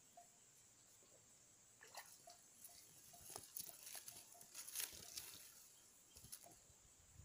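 Faint crackling and rustling clicks for about three seconds in the middle, over a faint, short, high chirp repeating a few times a second.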